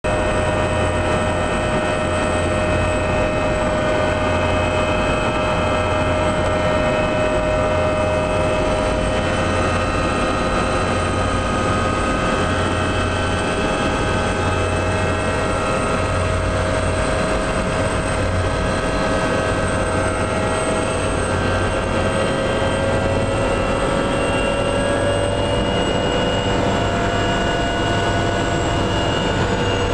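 Helicopter turbine engine and rotor running steadily on the ground, heard from inside the cabin: a low rotor beat under a layered engine whine. Near the end the whine shifts slightly in pitch.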